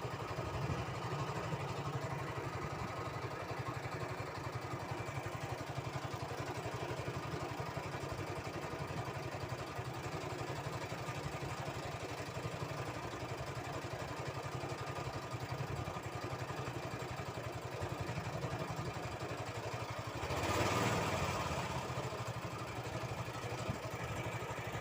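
A small engine running steadily at idle, with a brief louder rushing noise about twenty seconds in.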